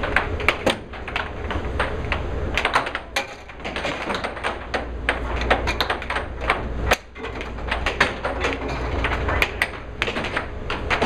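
Air hockey puck and mallets clacking in rapid, irregular strikes, over the steady low hum of the table's air blower.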